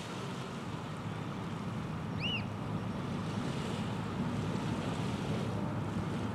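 Steady wind and water noise, with one short rising-and-falling bird call about two seconds in.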